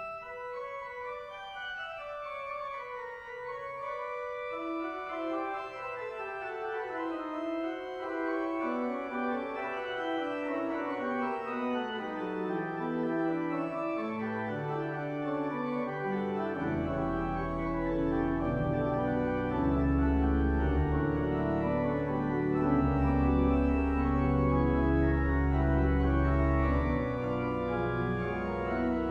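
Church organ playing slow, sustained chords, with an inner line stepping downward. Deep pedal bass notes come in a little over halfway through, and the music grows fuller and louder.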